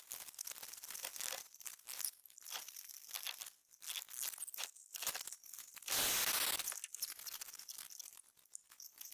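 Foam exercise-mat floor tiles being handled and pressed into place: a quiet run of irregular soft scrapes, crinkles and rips, with a longer rustle about six seconds in.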